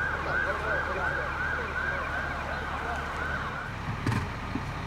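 Emergency vehicle siren in fast yelp mode: a rapid rising-and-falling wail about three times a second that cuts off about three and a half seconds in. A brief knock follows soon after.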